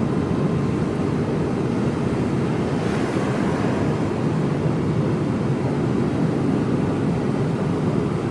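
Mercedes-Benz Actros lorry's diesel engine and road noise heard inside the cab while driving, a steady low noise with no change in pitch.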